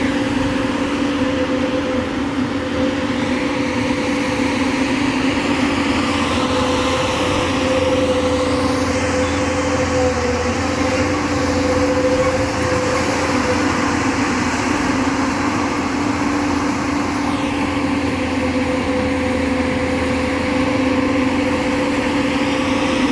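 JCB 3DX backhoe loader's diesel engine running steadily under working load while it digs, with faint high whines rising and falling now and then.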